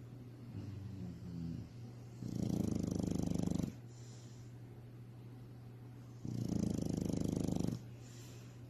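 A sleeping pet snoring with a purr-like rattle: two long snores of about a second and a half each, roughly four seconds apart, with softer breaths between them.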